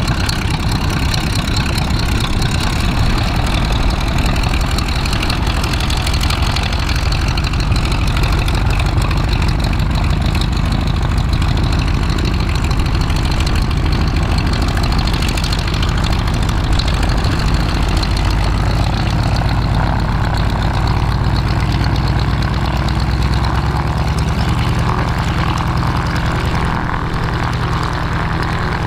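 Boeing Stearman biplane's radial piston engine running at idle just after startup, with its propeller turning. The sound is loud, steady and low-pitched, and the pitch shifts slightly in the last third.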